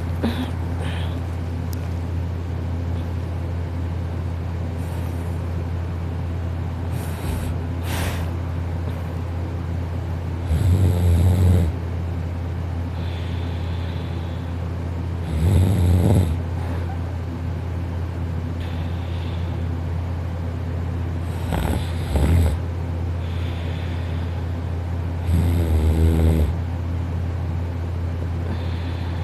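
A person snoring in sleep: four rattly snores about five seconds apart, each lasting about a second, over a steady low hum.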